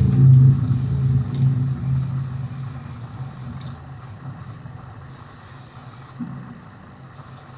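A motor vehicle's engine rumbling close by, loud at first and fading away over a few seconds. Short hisses of a spray-paint can come through later, as a throw-up is sprayed on a freight car.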